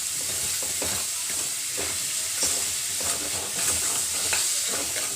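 Paneer bhurji sizzling in a kadhai while a ladle stirs and mixes it, with irregular scrapes and taps of the ladle against the pan over a steady frying hiss.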